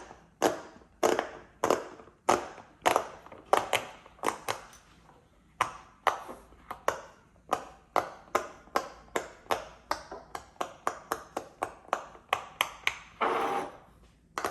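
Silicone push-pop fidget toy being pressed bubble by bubble, a long run of sharp pops, about two a second at first and quicker in the second half.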